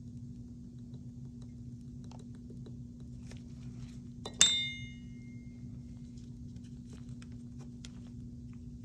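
Steel dental hand instruments clinking once, with a short metallic ring, as they are handled about halfway through. Faint light taps and a steady low hum run underneath.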